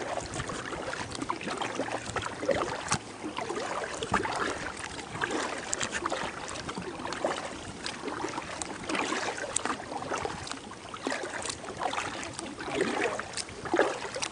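Double-bladed kayak paddle stroking through the water: blades dipping and splashing, water dripping and trickling off them, with sharp little clicks and knocks now and then in an uneven rhythm.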